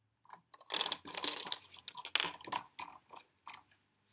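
Plastic LEGO vet-unit truck being handled and set down on a wooden table: a quick clatter of small clicks and rattles lasting about two seconds, then a few scattered clicks.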